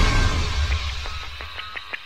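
Logo-reveal intro music: a deep rumble fading away, with a run of sharp ticks starting about a second in.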